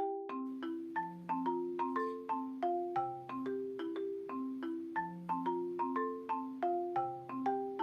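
Background music: a light marimba-like mallet melody of short struck notes, about three to four a second, over a simple sustained bass line.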